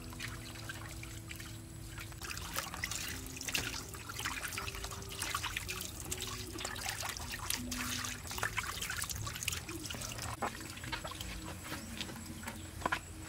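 Tap water trickling from a pipe into a metal basin as tomatoes are washed by hand, with small splashes and knocks from the handling.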